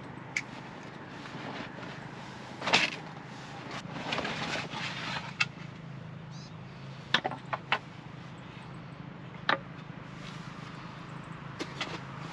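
Scattered sharp knocks and clicks, the loudest about three seconds in and three in quick succession around the middle, with a short rustle, over a steady low background rumble.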